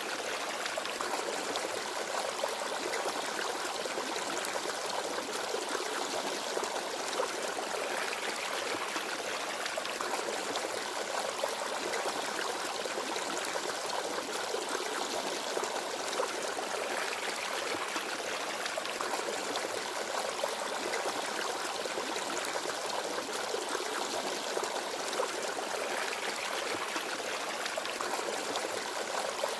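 Small forest stream babbling and trickling over stones, a steady even water sound without birds.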